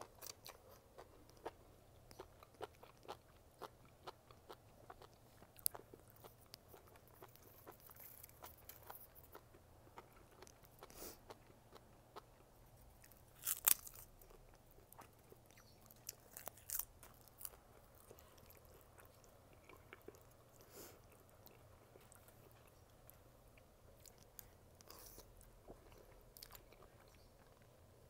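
A person chewing and biting enoki mushrooms and ribbon pasta: irregular soft, wet mouth clicks and chews, with a louder, sharper bite about halfway through.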